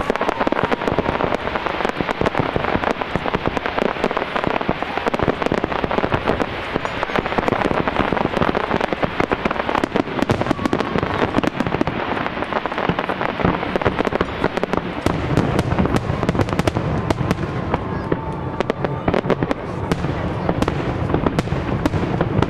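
Fireworks display: a dense, continuous crackle of many rapid pops from crackling shells bursting overhead. A low rumble joins in about two-thirds of the way through.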